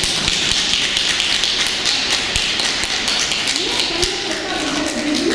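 Audience applauding as a piece ends: dense clapping from many hands. A voice begins speaking over it a few seconds in.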